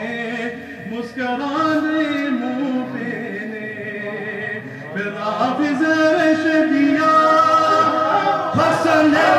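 Men's voices singing a Sufi devotional chant, holding long notes that slide from pitch to pitch. Near the end, many more voices come in louder.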